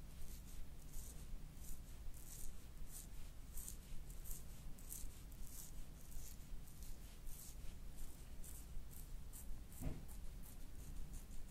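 Fingers rubbing and tugging through hair on the scalp, a soft scratchy rustle repeating about one and a half times a second.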